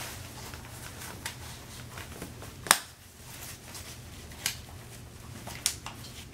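Snap fasteners on a baby seat's padded fabric cover clicking shut as they are pressed together, amid fabric rustling: a handful of sharp clicks, the loudest about three seconds in.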